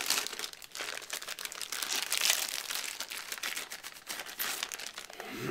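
Thin plastic packaging bag crinkling as it is handled and pulled open: a dense, crackly rustle of many small clicks, loudest about two seconds in.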